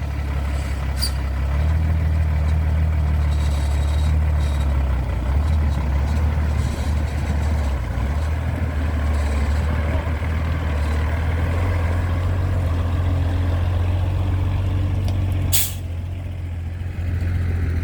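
Four-wheel-drive's engine running steadily in low gear under load, a deep even hum with a rushing noise above it. Near the end a sharp click, after which it goes a little quieter.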